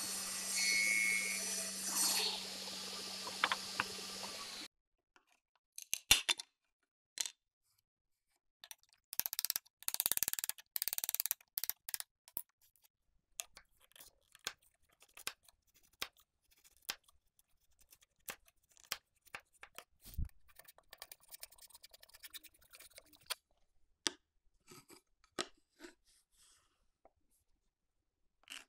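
Table saw running and cutting an oak board, stopping abruptly about four and a half seconds in. After that, a hand chisel pares and scrapes the oak in short, irregular strokes and taps.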